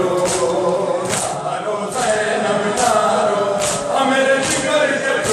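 Men's voices chanting an Urdu nauha (Shia lament) together, over matam: hands striking chests in unison as sharp slaps, a little more than one a second.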